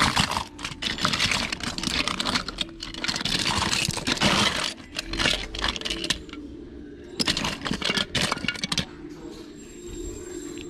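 Hard plastic action figures and loose toy parts clattering and rattling against each other as hands sift and push through a pile of them, in bursts with short pauses, quieter near the end.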